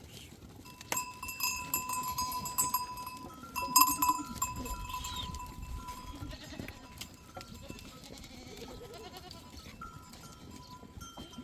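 Bells on a grazing flock ringing and clanking, loudest in the first half, with a bleat from the sheep partway through.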